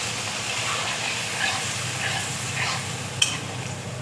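A pan of potol (pointed gourd) curry sizzling as water hits the hot fried masala, while it is stirred with short scraping strokes. A sharp click comes about three seconds in.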